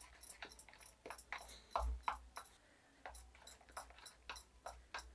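Thick sweet potato batter being beaten in a bowl: faint, irregular wet clicks and squelches, several a second, with one louder smack a little under two seconds in.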